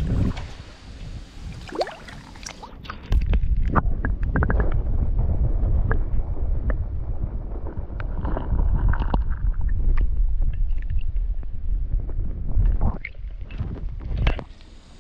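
Camera microphone dunked in creek water: splashing for the first few seconds, then muffled underwater rumble and gurgling with little high end for about ten seconds, and more splashing near the end as it comes back up.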